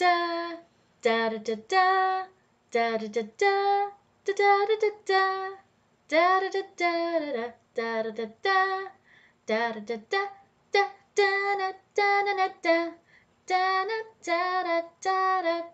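A woman singing a song's melody unaccompanied and without lyrics, in short detached notes grouped into phrases with brief pauses.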